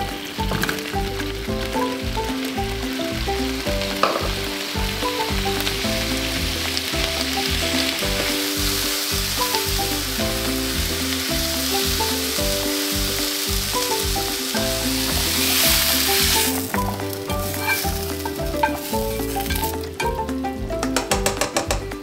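Sliced onions sizzling in foaming butter in a frying pan while being stirred with a spatula; the sizzle swells past the middle and dies down near the end. Background music with a steady bass plays throughout.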